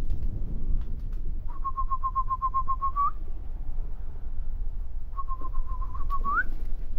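Person whistling to call pigeons down: two runs of rapid short, even notes, each ending in a rising note, over a low wind rumble on the microphone.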